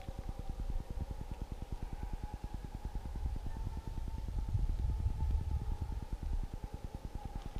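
Vehicle engine idling with an even, rapid low throb, plus a faint steady higher tone.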